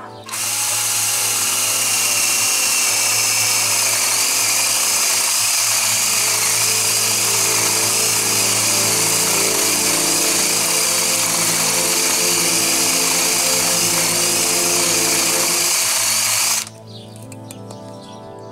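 Electric power tool running steadily while cutting wood, starting just after the start and cutting off abruptly near the end, with a high whine over a dense grinding noise.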